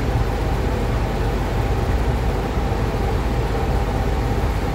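Paint booth exhaust fan running steadily: an even rush of air over a low hum.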